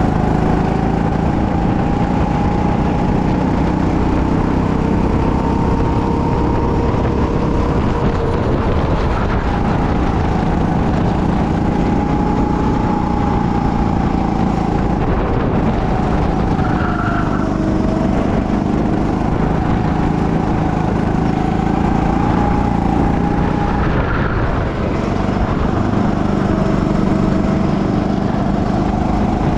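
Go-kart engine running hard around the track, its pitch sagging briefly twice as the kart slows for corners and climbing again on the straights.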